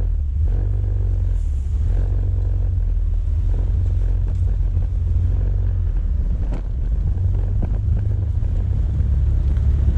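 Motorcycle riding along a road, heard from the bike itself as a steady low rumble of engine and road noise, with a few faint knocks.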